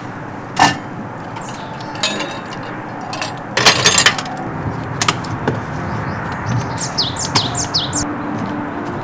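Knocks and a brief clatter of things being handled on a camp table, a sharp click about half a second in and a louder clatter a little before the middle. Near the end a bird calls a quick run of about six short high notes, each falling in pitch.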